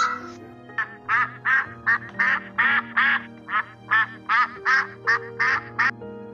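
Mallard ducks quacking: a steady run of about fourteen short quacks, roughly three a second, over background music with held notes.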